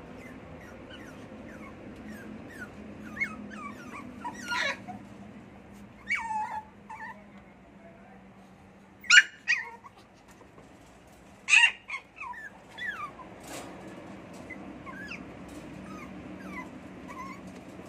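Poodle puppies whimpering in many short, high squeaks, with several louder yelps in the middle.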